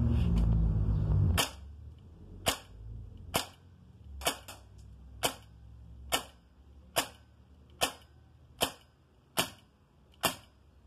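Shark semi-automatic CO2 air rifle, 5.5 mm, firing a string of about eleven sharp shots roughly a second apart, emptying its load of spherical lead balls. A low rumble comes before the first shot.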